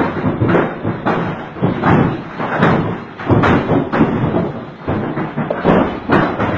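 Heavy hail coming down on hard surfaces: a dense, irregular run of thuds and knocks with no let-up.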